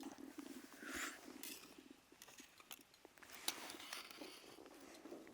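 Quiet eating sounds: scattered light clicks and short rustles of utensils and food being handled.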